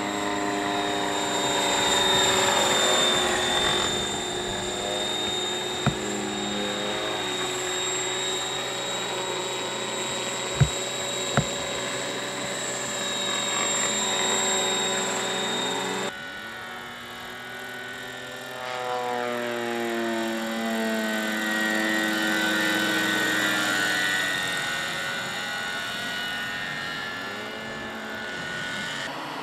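Radio-controlled scale model helicopters in flight: the steady drone of engine and rotors, with a thin high whine over it and a pitch that slides up and down as they pass. There are two sharp clicks near the middle, and the sound changes abruptly about halfway through.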